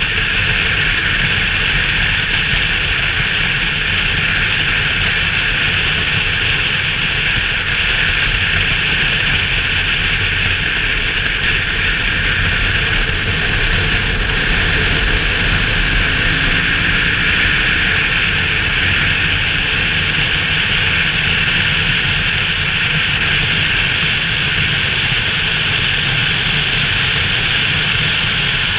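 BMW R 1200 GS motorcycle cruising at a steady road speed: a steady rush of wind over a helmet-mounted camera, with the flat-twin engine running underneath and no change in revs.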